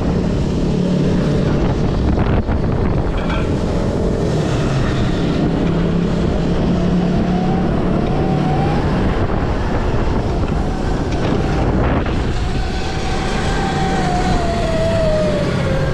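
Wind noise on the microphone from riding an electric bike, with the whine of an electric motor rising about seven seconds in and another falling away near the end.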